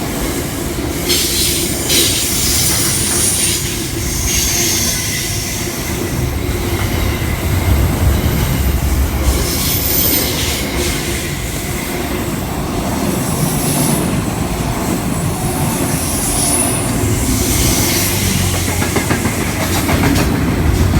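Electric passenger train moving along the rails, a steady rumble with wheel clatter and several brief high-pitched wheel squeals.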